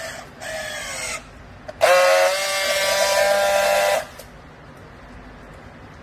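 Battery-powered handheld strapping tool working a plastic strap around a bale: brief motor whirrs in the first second or so, the second one falling in pitch as the strap is pulled tight, then about two seconds of loud steady buzzing as it friction-welds the strap seal, cutting off sharply.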